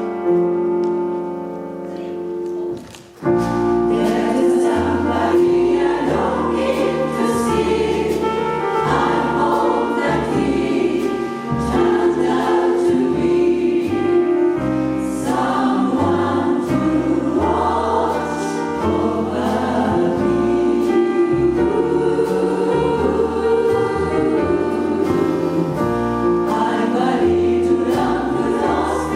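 Jazz choir singing with piano, bass and drums. A held chord fades over the first three seconds, then the choir and band come in together about three seconds in and carry on with a moving bass line and regular cymbal strokes.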